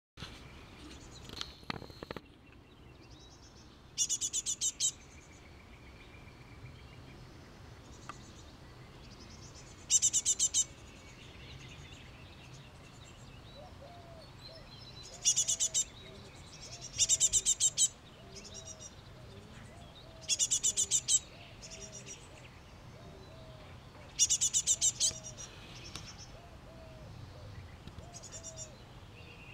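Great tit fledgling begging calls: short bursts of rapid, high chirps, each under a second, coming about seven times at intervals of a few seconds.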